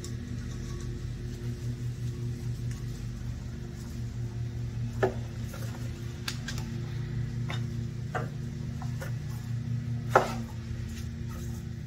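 A screwdriver and metal fittings clicking and clattering as the propane demand regulator is unfastened and lifted off the generator engine: scattered sharp clicks, the loudest about five seconds in and again about ten seconds in, over a steady low hum.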